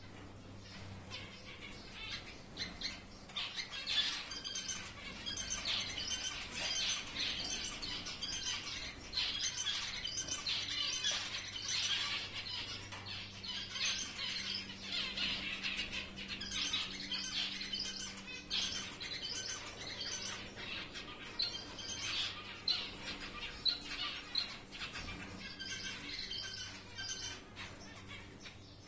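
A flock of giant zebra finches calling: many short calls overlap without a break, thickest in the middle, over a steady low hum.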